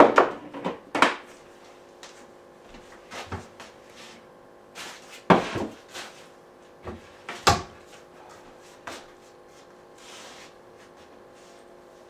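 Cupboard door and things being handled in it: a string of separate wooden knocks and clatters, loudest at the very start, about a second in, and around five and seven and a half seconds in.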